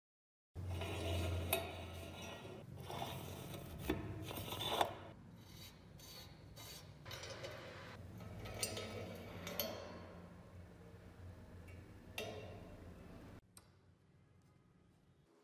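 Gloved hands handling a rusty antique blowtorch: corroded metal parts rubbing and scraping, with several sharp clicks and knocks. It becomes much quieter near the end.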